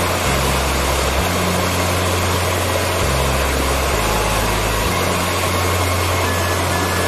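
Rushing water of a small rocky stream, a steady hiss, over background music whose low sustained bass notes change pitch every second or so.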